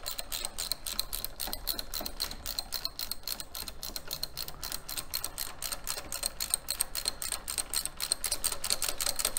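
Socket ratchet wrench clicking rapidly and evenly as it is worked back and forth.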